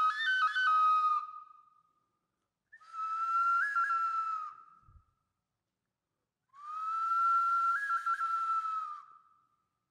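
Solo flute music: a quick stepping phrase that trails off about a second in, then two long held high notes, each with a brief upward flick in the middle, with silent pauses between them.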